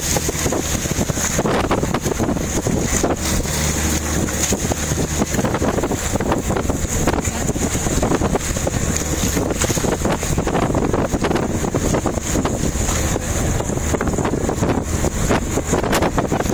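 Wind buffeting the microphone in gusts, over the steady low hum of a boat's engine running.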